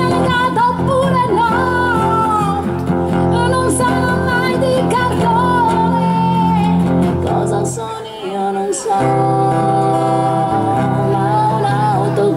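Two acoustic guitars strumming and picking a song, with a wavering lead melody over them and no words. The music thins out briefly about eight seconds in, then the guitars come back in full.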